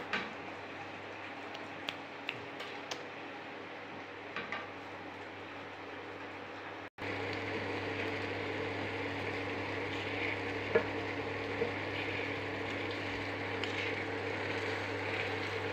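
Maggi noodles sizzling in a frying pan of tomato-and-egg masala on an induction cooktop, over a steady low hum, with a wooden spatula stirring and lightly knocking against the pan. After a brief break about seven seconds in, the sizzling is louder.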